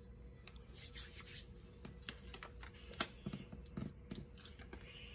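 Tarot cards being laid out and slid across a tabletop by hand: soft rubbing and rustling with light taps, and one sharper click about three seconds in.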